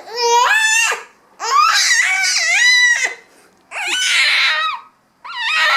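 Baby fussing and crying in four wavering wails, each about one to two seconds long with short pauses between them, out of frustration during tummy time.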